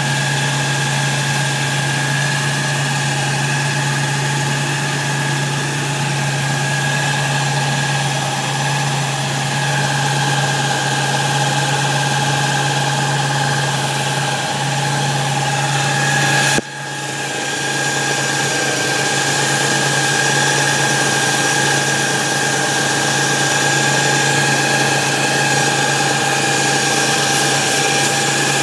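Car engine idling steadily, heard up close in the engine bay. A single sharp knock comes a little past halfway, after which the sound briefly dips and comes back.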